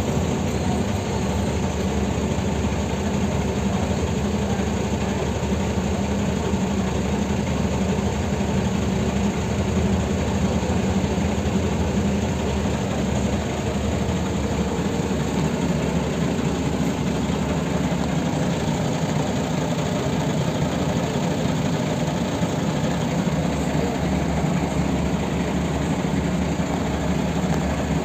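Mercedes-Benz O305 city bus heard from inside the passenger cabin: its diesel engine running steadily under the cabin's general noise. About halfway through, the engine's note drops lower.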